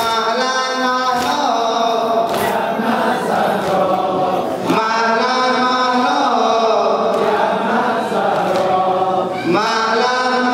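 Men's voices chanting a Shia mourning lament (latmiya) together, in long drawn-out sung phrases that rise and fall and break every few seconds.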